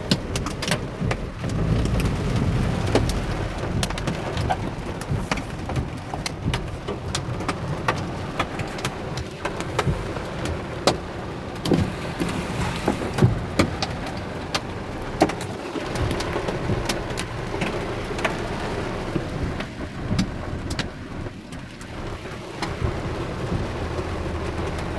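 Heavy rain mixed with hail, a dense steady downpour with many sharp separate clicks of hailstones striking hard surfaces, over a low rumble.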